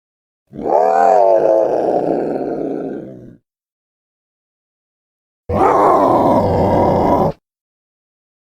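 Two designed Nanotyrannus (young T. rex) vocalization sound effects. The first is a pitched call of about three seconds that rises, then sinks and fades away. After a silent gap comes a rougher, flatter call of about two seconds that stops abruptly.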